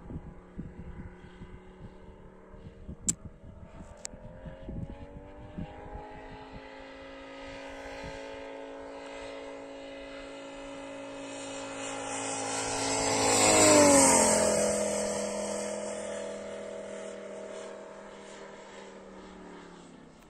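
Valach VM 250-R5 five-cylinder four-stroke radial engine in a radio-controlled model Fokker D.XXI flying a pass. The engine note rises in pitch around six seconds in, is loudest as the plane goes by about fourteen seconds in, and drops in pitch as it passes, then fades. A couple of sharp clicks come a few seconds in.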